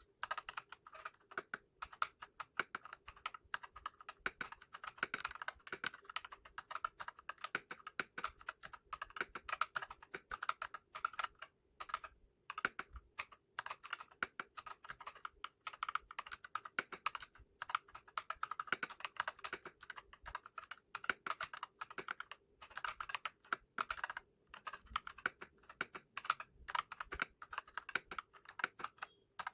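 Fast, continuous typing on a Redragon K596 mechanical keyboard with Akko CS Lavender Purple tactile switches and PBT pudding keycaps: dense, irregular key clacks with a few brief pauses.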